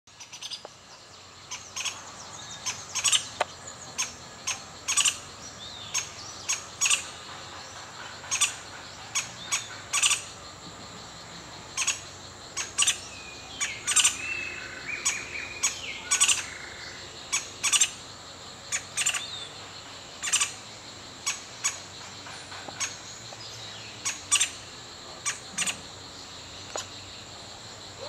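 Pale-billed woodpecker calling: sharp, short notes, often in quick pairs, repeated irregularly about once a second. This is the juvenile begging from the nest hole for food. A steady high insect drone runs underneath.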